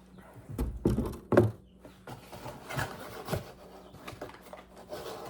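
Handling noise from the carbine and its packaging: three sharp knocks around a second in, the last the loudest, then a few seconds of rubbing and rustling.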